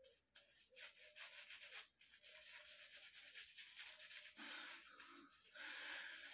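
Badger-hair shaving brush working soap lather onto the face: a faint run of quick, scratchy, brushing strokes.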